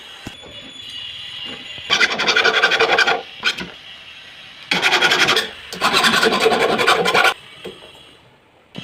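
Three bouts of fast rasping strokes, a file or abrasive worked back and forth on the work, each a second or so long.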